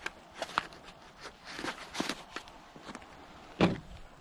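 Clicks and rustles of gloved hands handling AR-15 magazines and belt gear, with one louder, deeper knock about three and a half seconds in.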